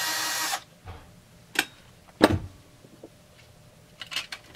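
Cordless drill spinning out a screw on a Husqvarna 350 chainsaw, cutting off about half a second in. Then a short metallic clink, a louder knock a little after two seconds as parts are handled and set down, and light clicking near the end.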